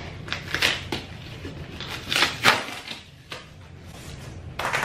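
Cardboard shipping box being pulled open by hand: packing tape and flaps tearing and scraping in several short rough bursts, the loudest about two and a half seconds in, with a longer rustle near the end.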